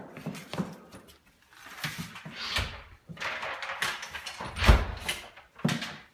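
Footsteps on a hard floor and a door being handled while walking through it, with a heavy, deep thump about three-quarters of the way in.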